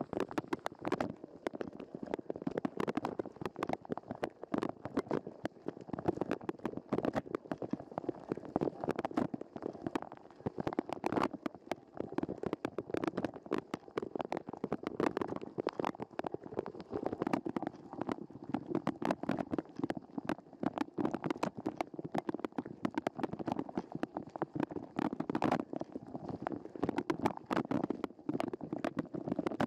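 A dishwasher's wash cycle heard from inside the machine through a waterproof camera housing: water from the spray arms steadily spattering on the housing and dishes, a dense patter of many rapid droplet hits over a muffled rushing.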